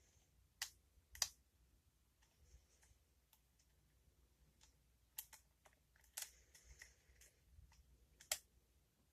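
Sparse small metallic clicks and faint scraping of lock picks working the pins inside a pin-tumbler lock cylinder, a handful of sharper ticks spread over several seconds.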